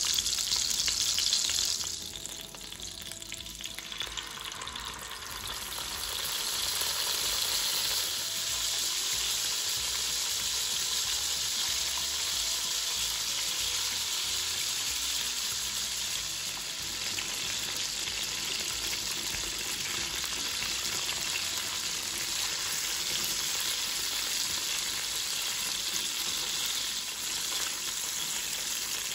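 Pork belly and then marinated chicken pieces sizzling in hot oil in a wok. The sizzle falls away about two seconds in, builds back over the next few seconds, and then holds as a steady fry.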